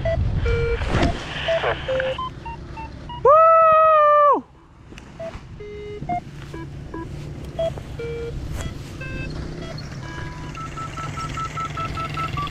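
Short electronic beeps at several different pitches, with one loud held tone of about a second that drops in pitch as it ends, and near the end a quick run of evenly spaced beeps at about five a second.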